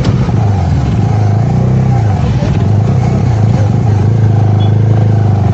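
Motorcycle engine running loud as the bike pulls away, its pitch dropping and climbing again about a second and a half in, then holding steady.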